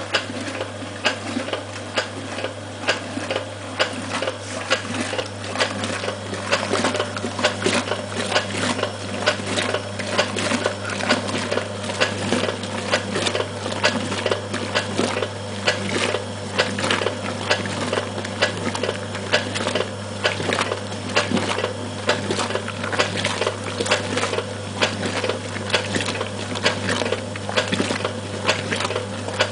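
Peabody 3 kg semi-automatic washing machine agitating a load in soapy water: a steady motor hum under an even, rapid clatter and water slosh, with a louder beat about twice a second.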